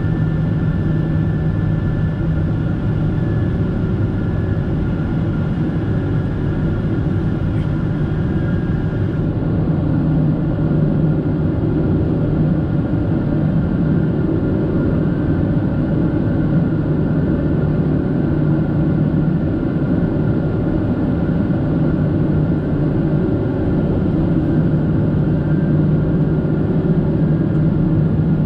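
Cabin noise of a Boeing 767-400ER in its climb: the GE CF6-80C2B7F turbofans and the airflow give a loud, steady roar with a few steady hums in it.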